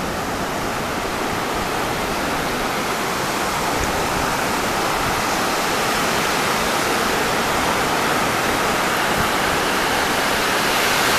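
Steady rushing of surf washing up the beach at the water's edge, slowly growing louder.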